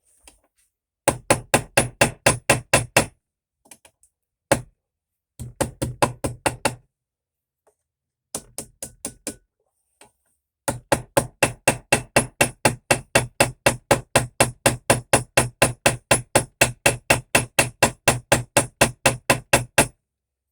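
Small hammer tapping rapidly on a pocket knife's pins, peening them over to rivet the knife together: four runs of quick, even strikes, about five a second, with short pauses between, the last run the longest.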